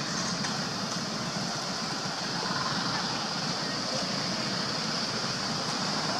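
Steady outdoor background noise with a constant high hiss and a low rumble, without distinct events.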